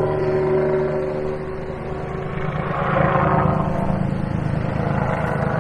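An engine running with a steady low throb, getting louder about halfway through.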